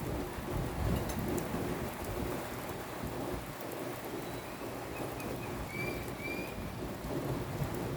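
Steady rain falling, with uneven low rumbling underneath. A few short, faint high chirps come in about five to six and a half seconds in.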